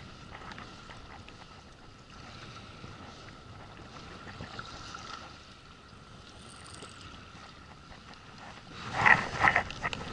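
Wind and water sounds around a small inflatable boat, with a faint steady high tone underneath. About a second before the end a loud run of rapid clicks begins.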